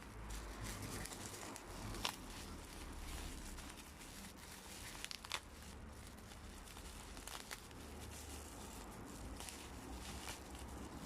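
Quiet crinkling and rustling of packaging as the parcel's contents are handled, with a few sharp clicks.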